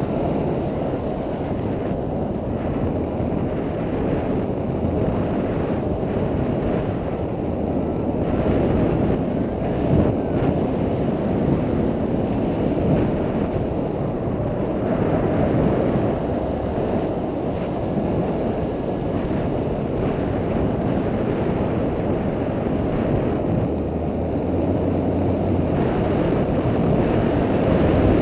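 Wind rushing over an action camera's microphone: a steady low rushing noise that swells and eases slowly.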